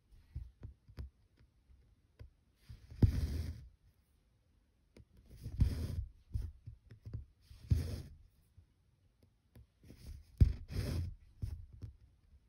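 Cross-stitching: a needle and embroidery floss pulled through taut 25-count evenweave fabric, each stitch a soft thump followed by a short rasp of thread being drawn through, about every two to three seconds.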